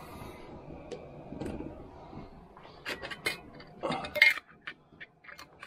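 Metal canning lids and screw bands clinking against glass mason jars as they are handled. After a soft rustle, there is a run of short sharp clicks and clinks in the second half, the loudest about four seconds in.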